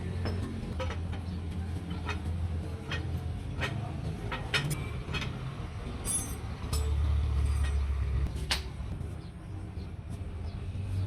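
A low, steady engine rumble, growing louder for about two seconds past the middle, with about a dozen sharp knocks scattered through it at uneven intervals.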